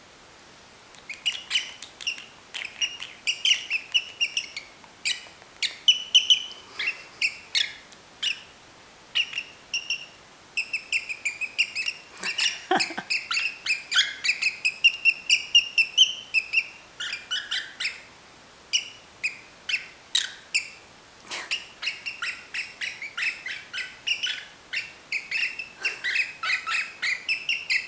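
Cockatiel whistling and singing: quick runs of short chirping notes, with a longer warbling phrase in the middle. The singing starts about a second in.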